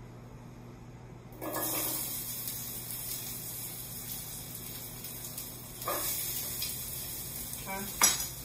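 Chopped carrots, garlic and celery dropped into a hot stainless-steel pan of oil, sizzling suddenly about a second and a half in and holding steady. A second handful goes in near six seconds, and a sharp clink sounds near the end.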